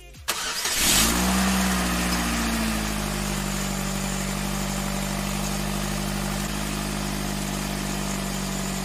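Car engine starting: it catches, flares up in revs about a second in, drops back over the next couple of seconds and settles to a steady idle.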